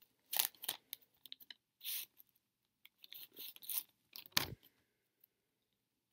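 Wrapper of a Pro Set football card pack crinkling and tearing as it is ripped open, in several crackly bursts, with a sharp thump about four and a half seconds in.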